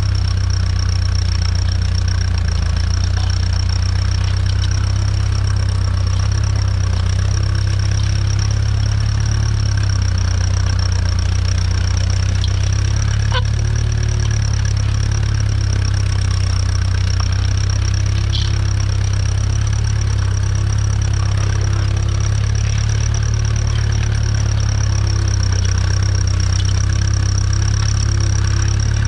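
A 1952 Ferguson TED20's 2.1-litre four-cylinder TVO engine running steadily under load as the tractor pulls a two-furrow mounted plough, with a steady high whine over it.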